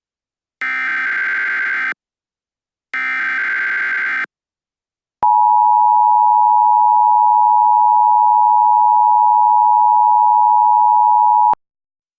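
Emergency Alert System opening: two short bursts of warbling data tones from the alert header, then the two-tone EAS attention signal held steady for about six seconds before it cuts off abruptly.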